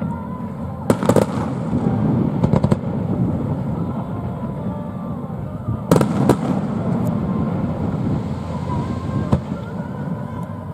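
Aerial fireworks bursting: a couple of sharp bangs about a second in, a quick crackling cluster around two and a half seconds, a loud pair about six seconds in and another bang near nine seconds, over a steady low rumble.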